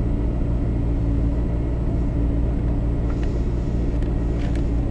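Rally car's engine idling steadily, heard from inside the cabin, with a deep rumble and an unchanging pitch.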